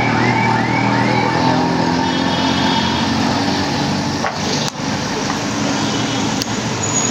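Busy street noise: vehicle engines running steadily under the hiss of batter deep-frying in a large wok of oil, with a few quick high chirps in the first second or so.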